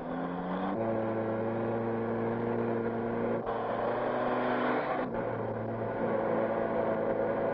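Military jeep engine running on an old film soundtrack. The pitch climbs a little at first, then shifts abruptly about a second in and again around three and a half and five seconds.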